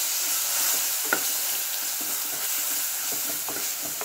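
Ginger-garlic paste and browned onions sizzling in oil in a clay pot, with the spatula scraping and knocking against the pot as they are stirred. One sharper knock comes about a second in.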